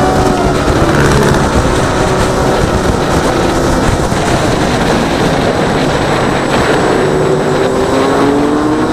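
Heavy wind rushing over the camera microphone on a moving Yamaha Sniper 150, with the bike's single-cylinder four-stroke engine running underneath. The engine note rises steadily over the last couple of seconds as the bike accelerates.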